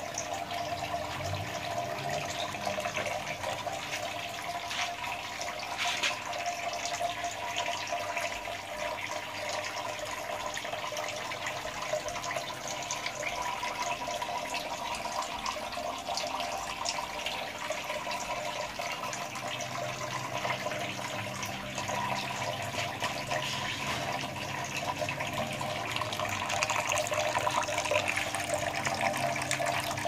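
Water trickling and splashing as it pours from a PVC pipe elbow into the pipe below in a pump-fed hydroponic channel system, with a steady hum underneath.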